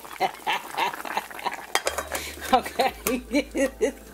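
Glass lid of a small rice cooker clinking and knocking as it is handled and set back on the pot, with a woman laughing in a string of short ha-ha sounds in the second half.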